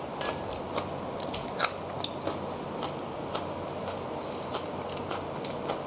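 A person biting and chewing crunchy food with their mouth close to a clip-on microphone. A run of sharp, crisp crunches comes in the first two seconds, then quieter chewing.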